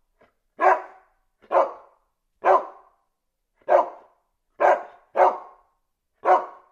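A puppy barking at its own reflection in a mirror: seven short, high, sharp barks, about one a second.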